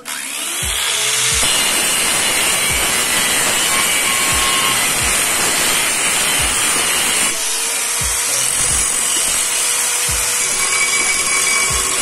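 Angle grinder with an abrasive disc grinding a steel machete blade: a steady, loud hiss that builds up over the first second and a half as the disc comes up to speed and bites. A regular music beat runs underneath.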